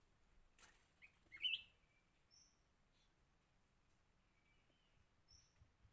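Small wild bird's short chirps: a quick sharp call about one and a half seconds in, the loudest sound, then two brief high thin notes a few seconds apart, with a faint click just before the first call, otherwise near silence.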